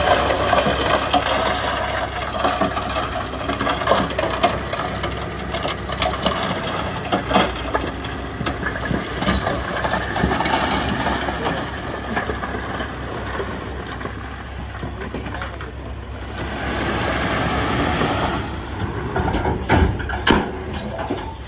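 Heavy diesel machinery at work: a steady engine drone with frequent irregular knocks and clanks, easing off about two-thirds of the way through, then picking up again.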